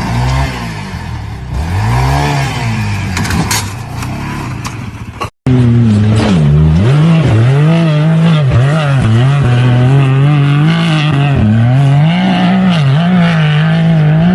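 Off-road vehicle engines revving, their pitch rising and falling repeatedly. About five seconds in the sound drops out briefly and a second, louder engine takes over, revving up and down.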